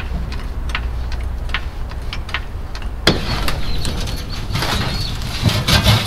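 Scattered metallic clicks and knocks of hand-tool work on a pickup truck's underside, growing busier about halfway through with a sharper knock, over a low steady hum.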